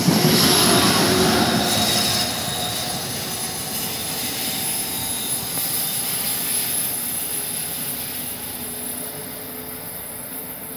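Amtrak Acela Express high-speed train rushing through the station at speed, its tail end going by in the first couple of seconds, then its rush fading steadily as it recedes down the line.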